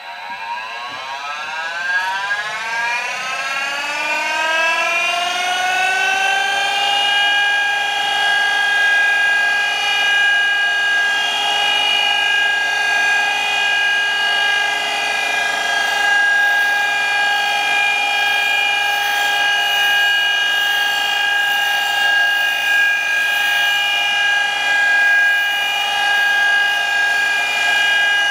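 Surface grinder's wheel spindle motor starting up: a whine that rises in pitch over the first six seconds or so, then runs steady at full speed.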